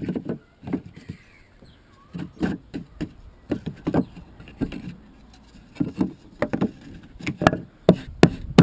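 Wooden hive top bars knocking and clattering against one another and the hive body as they are handled and set in place: a string of irregular short knocks that come faster near the end.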